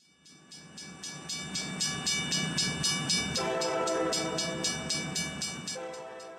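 Sound decoder of an Atlas GE U36C model locomotive playing a ringing locomotive bell, about four strokes a second, getting louder. About three and a half seconds in, a horn chord sounds over it, with a second, shorter horn note near the end.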